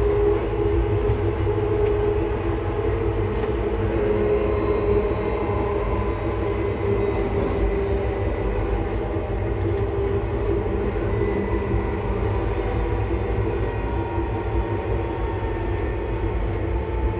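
ScotRail Class 334 electric multiple unit running between stations, heard at the gangway between carriages: the traction motors whine in several steady tones over a loud, continuous low rumble from the wheels and bogies.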